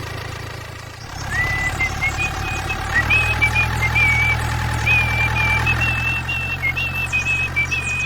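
A steady low engine rumble, joined about a second in by a high tune of short held notes that steps up and down.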